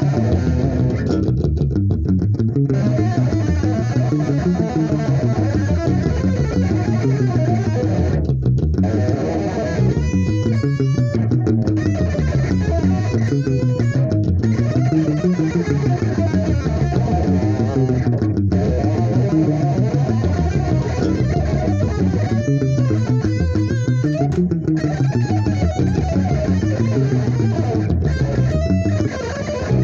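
Extended-range electric guitar played in fast, flowing fusion lines, at times two-hand tapped on the fretboard, with low notes rising and falling in a continuous line under the higher ones.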